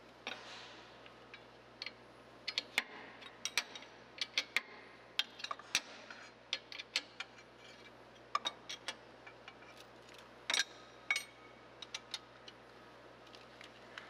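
Irregular metallic clicks and ticks, often two or three close together, from a hand wrench working the stud nuts that secure a street sweeper's pickup broom core to its broom motor assembly.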